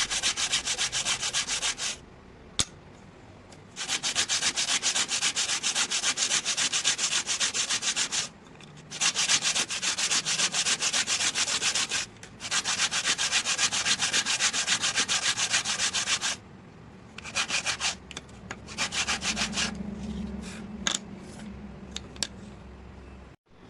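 Hand sanding with sandpaper: rapid back-and-forth rubbing strokes in bouts of a few seconds with brief pauses between. Near the end come a few shorter bursts and then fainter, scattered scrapes.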